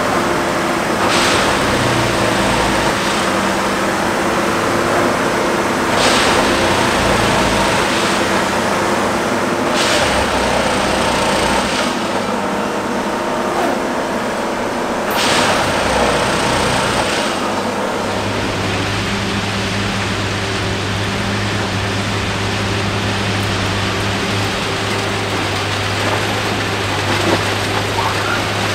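Railway track maintenance machine running steadily, with a short rush of noise four times, about every four to five seconds, over the first sixteen seconds; after that it settles into a steadier, lower hum.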